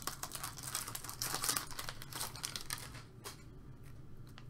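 Foil trading-card pack wrapper crinkling as it is peeled open by hand, in dense crackles for about three seconds, then fainter, with one sharp click a little after three seconds in.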